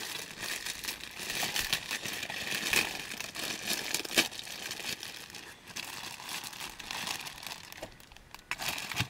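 Packaging crinkling and rustling as it is torn open and handled to serve food, with a few sharp snaps among the crackle.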